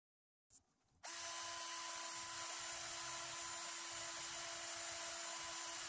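Cordless drill running at one steady speed, a constant whine with no change in pitch. It starts about a second in and stops abruptly near the end.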